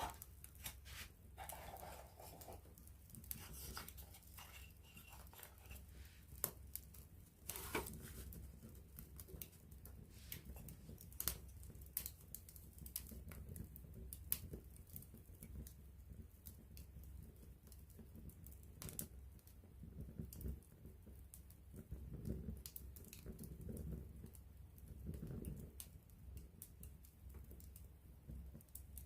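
Wood campfire burning close up: faint, irregular crackling with a few louder pops, over a low steady rumble.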